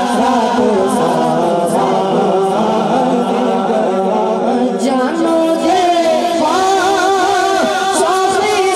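A boy reciting a naat, an Urdu devotional song in praise of the Prophet, sung in a long melodic line into a microphone; his voice moves to a higher pitch about five seconds in.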